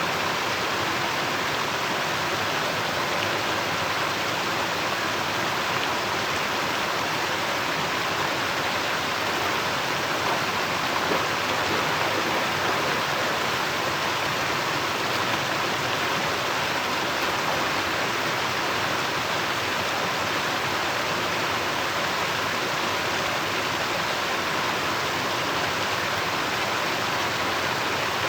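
Steady rushing noise with no tones or knocks, like running or spraying water.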